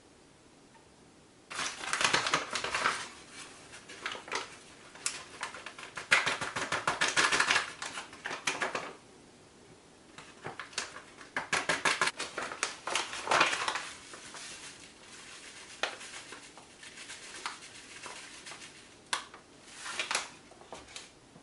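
Paper flour bags crinkling and rustling in irregular bursts as they are handled and flour is poured into a glass mixing bowl.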